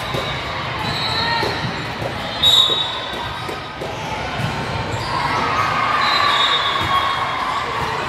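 Indoor volleyball game sounds in a gym: the ball being hit and shoes on the court floor, among players' calls and spectators' voices. A short shrill sound stands out about two and a half seconds in.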